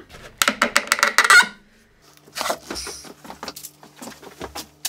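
Claw hammer tapping a nail into MDF in a quick run of strikes, then metal hand tools clattering and knocking as they are picked up from a bench.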